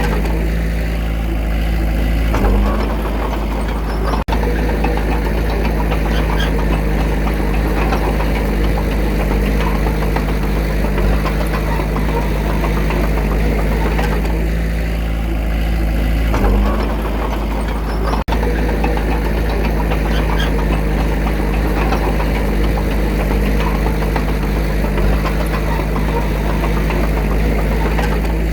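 Diesel engine of earthmoving machinery running steadily with a knocking clatter. Twice, a couple of seconds in and again past halfway, the sound briefly grows louder and fuller.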